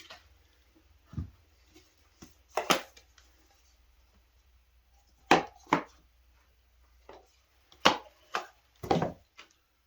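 Scattered sharp knocks and clicks, about ten in all with quiet gaps between, from folding pocket knives and their cardboard boxes being handled and set down.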